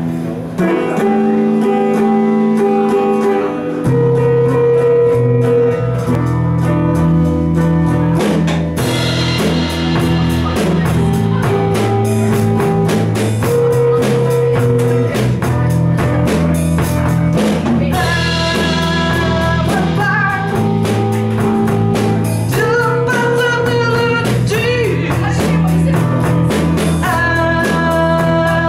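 Live psychedelic rock band playing: electric guitar, bass and drum kit, with singing over it. The low end fills out about four seconds in.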